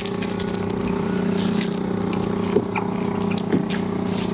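Two-stroke outboard motor on a nearby boat running at a steady pitch.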